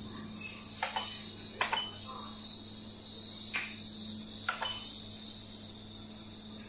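Steady high chirring of an insect chorus over a low steady hum, with four sharp clacks spread through it as xiangqi pieces are set down on the wooden board.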